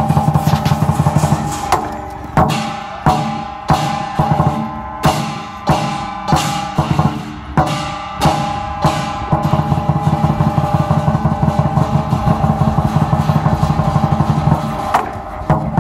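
Lion dance percussion: a large Chinese lion drum beaten in fast rolls, with crashing hand cymbals. About two seconds in, the rolls give way to loud accented crashes about every two-thirds of a second, each one ringing. Past the halfway point the fast steady drumming returns.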